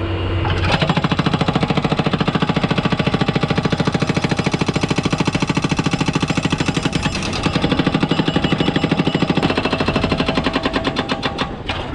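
Skid-steer-mounted hydraulic breaker hammering thick reinforced concrete: a fast, steady train of blows over the machine's engine, slackening briefly past the middle, then cutting off suddenly near the end, which the crew takes for the machine running out of fuel.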